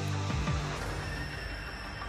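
Background music: a low beat that stops about half a second in, leaving held tones.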